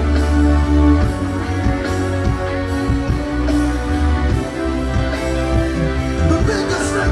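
A live band playing an instrumental passage, with guitar over a steady bass line.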